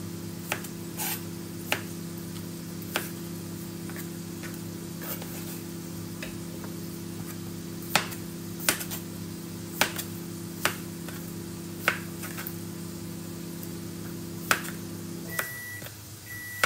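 A kitchen knife slicing bell peppers, tapping sharply on a cutting board at irregular intervals. Under the taps a kitchen appliance hums steadily, then cuts off near the end, followed by electronic beeps.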